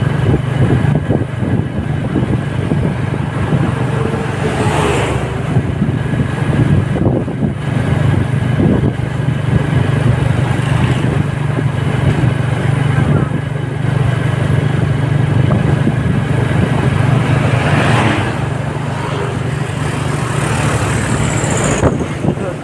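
Steady engine drone and road noise of the moving vehicle carrying the recorder, with other vehicles swelling past about 5 and 18 seconds in.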